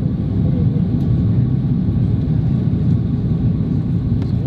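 Steady low rumble of engine and airflow noise inside the cabin of an Airbus A330-300 on final approach.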